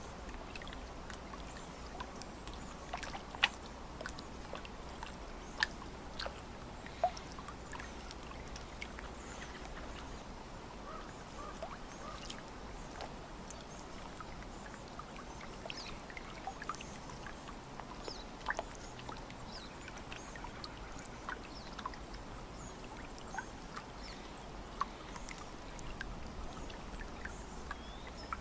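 Lake water lapping against the shore: small, irregular splashes and plops over a steady low wash, with a few sharper, louder splashes.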